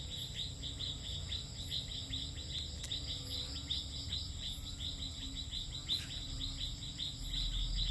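Night chorus of forest insects: a steady high-pitched trill under a fast, even series of short chirps, about five a second.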